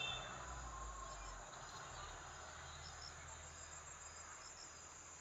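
Faint, steady chirring of crickets, with a low rumble that fades out about a second and a half in.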